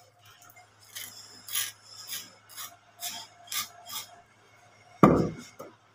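Abrasive paper rubbed in short scraping strokes against a lacquered wooden cot leg, about two strokes a second. About five seconds in comes a loud wooden thud as a heavy turned cot leg is set down on the floor.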